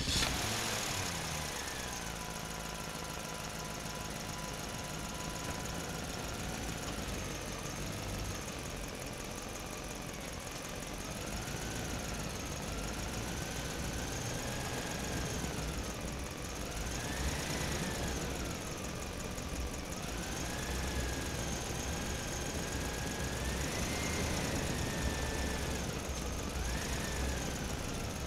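Centy Toys battery-operated pickup truck's electronic engine sound effect. It is a steady idle-like rumble whose pitch rises and falls in repeated revs, more often in the second half.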